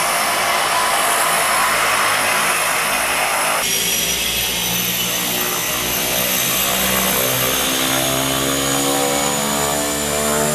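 Cessna 208 Grand Caravan's single turboprop engine running as the aircraft taxis: a steady high turbine whine over dense propeller noise. From about four seconds in, the propeller hum rises slowly in pitch as the plane comes closer.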